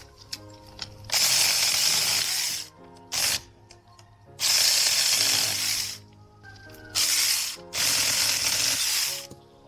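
Saker mini cordless electric chainsaw running in five bursts as it cuts small branches: three longer runs of one to two seconds and two short ones, each starting and stopping sharply. Background music plays underneath.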